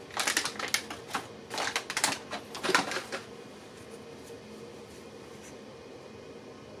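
Rapid plastic clicks and rattles from a laptop being handled during a battery swap, lasting about three seconds and then stopping, leaving a faint steady hum.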